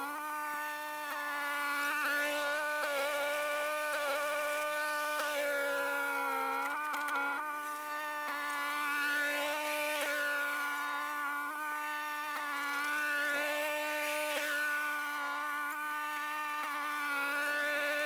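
Gas two-stage snowblower engine running steadily at working speed, a continuous buzzing drone whose pitch sags briefly about six seconds in before recovering.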